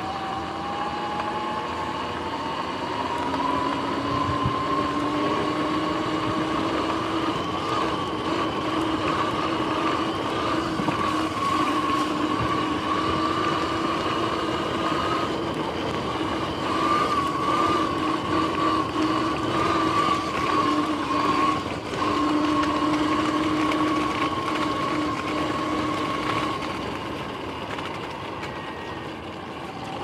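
Sur-Ron X electric dirt bike's motor and drivetrain whining under way over grass, over a rush of wind and tyre noise. The whine rises in pitch over the first few seconds as the bike speeds up, then holds steady. It dips briefly about two-thirds of the way in and fades near the end as the bike slows.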